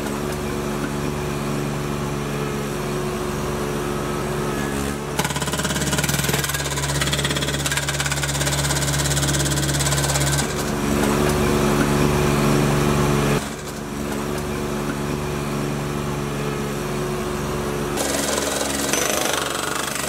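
Hydraulic jack hammer attachment on a tracked mini skid steer pounding and breaking concrete, over the machine's engine running. The sound changes abruptly a few times, where louder hammering stretches come and go.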